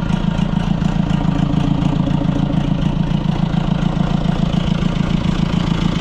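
White 700 tractor's engine idling steadily soon after a cold start, running smoothly and evenly.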